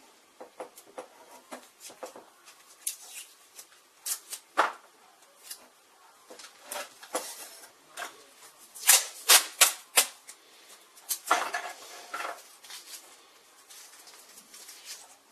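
Small screws, nuts and hand tools clicking and tapping against the aluminium frame of a model signal-box lever bench as parts are fitted and screwed on by hand. The taps come irregularly, with a quick run of sharper clicks about nine to ten seconds in and a brief scrape around eleven seconds.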